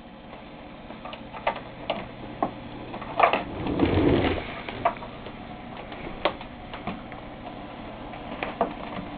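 Irregular crackling clicks from a faulty Insignia NS-LCD26A LCD TV, over a faint steady hum, with a louder rustling crackle about three to four seconds in. This is the fault noise the owner is trying to track down and has not yet fixed.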